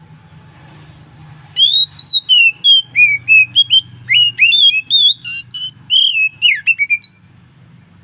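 Oriental magpie-robin (kacer) singing one loud, varied phrase of clear whistled notes, rising and falling in pitch. It starts about one and a half seconds in and breaks off about a second before the end.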